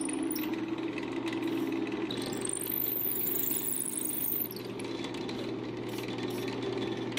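A drill press motor runs with a steady hum. A little after two seconds in, the bit cuts into the handle block with a high-pitched squeal for about two seconds, then spins free. The motor cuts off at the very end.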